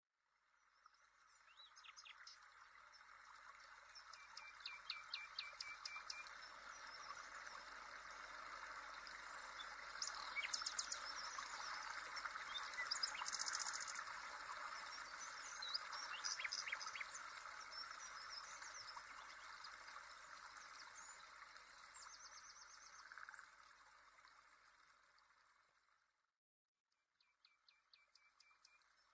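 Small birds chirping and trilling over a steady water-like hiss, a nature ambience; it fades out about 26 seconds in and starts again a second later.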